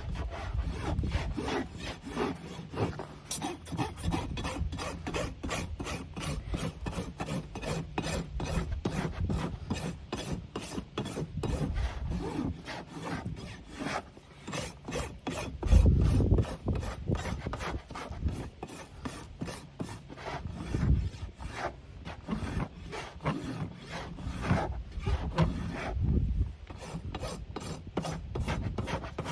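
Farrier's hoof rasp dressing a pony's hoof wall: a long run of even, regular scraping strokes, taken gently to even up the inside of a toe-in foot. A few heavier low thumps break in, the loudest about halfway through.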